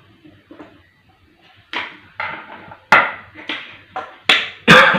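Handling noises of hand-wiring an electrical switch: a string of about seven sharp clicks and knocks, the loudest pair near the end, over a faint steady low hum.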